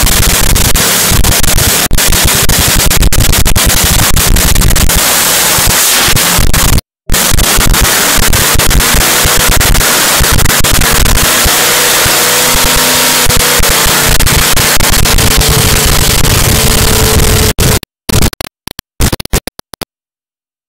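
Supercharged nitromethane-burning funny car V8 running during a warm-up test fire in the pit, very loud, near the top of what the recording can take. The sound cuts out for a moment about seven seconds in, then breaks up into short bursts near the end and stops.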